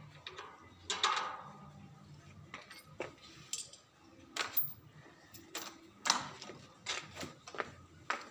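A series of sharp clicks and light knocks, about eight of them at uneven intervals, with no voice.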